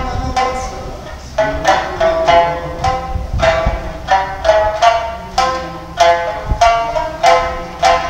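Two sanshin, Okinawan three-stringed lutes, plucked together in a lively folk tune, several notes a second, with a brief pause about a second in.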